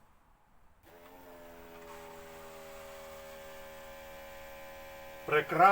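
Low-pressure electric fuel pump for a carburettor engine switching on about a second in and running with a steady electric hum. Wired with reversed polarity, it is drawing petrol well.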